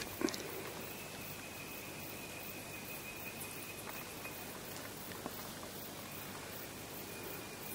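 Quiet forest ambience with a thin, steady high insect tone that stops for about two seconds past the middle, then resumes. A single sharp knock sounds just after the start.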